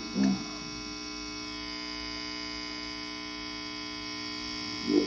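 Steady electrical hum with many overtones, from the ungrounded turntable playing through a cheap workbench amplifier. Brief snatches of a recorded voice from the record come at the very start and again near the end.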